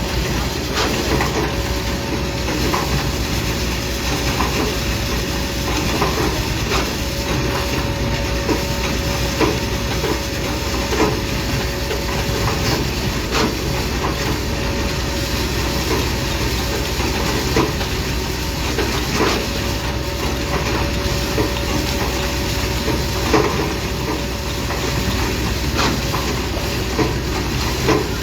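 Heavy construction machinery running steadily with a constant hum. Scattered metallic clicks and knocks sound throughout.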